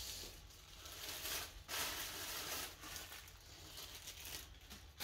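Rustling and crinkling of packaging being handled, in a few short bursts, the longest about two seconds in.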